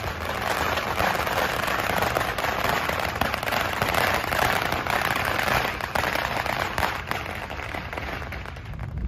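Strings of firecrackers going off in a dense, continuous crackle of rapid pops, easing slightly near the end.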